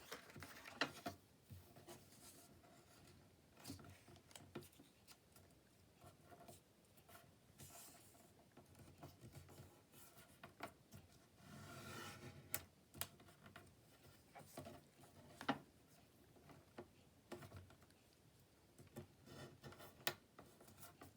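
Faint rustling and scraping of thick paper being folded and creased by hand, with scattered light taps and one longer rustle about halfway through.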